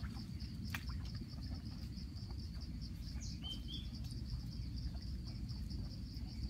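Insects chirring steadily in a fast, high pulsing trill, with a bird giving a few short chirps about halfway through. A sharp click sounds just under a second in, over a low steady rumble.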